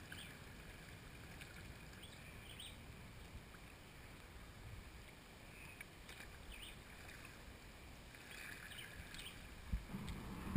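Quiet paddling of an inflatable kayak on a calm river: paddle blades dipping and water dripping in short, faint splashes about once a second, with a soft thump near the end.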